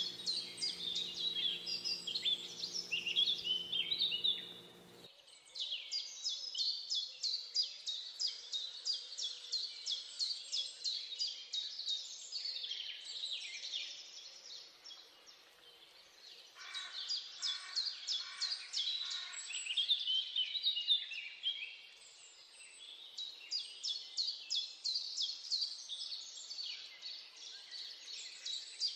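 Recorded birdsong: several birds singing at once, a dense chorus of quick, high chirps and trills, thinning briefly a few times before picking up again.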